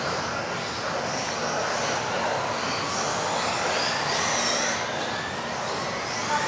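Several electric RC off-road buggies racing, their motors giving high whines that rise and fall as they speed up and slow down, over a steady hiss.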